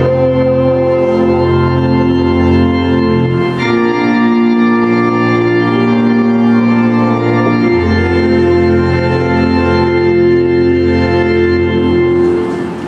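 Church organ playing slow, sustained chords over a deep held bass note, the chords changing every few seconds and stopping about twelve seconds in.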